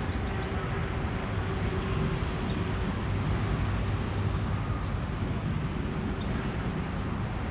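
BNSF diesel freight locomotive approaching slowly at a distance, its engine a steady low rumble.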